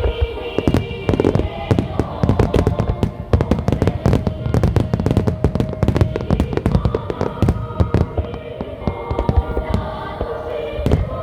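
Fireworks display: a dense, rapid run of shell bursts, bangs and crackles, with music with singing playing at the same time.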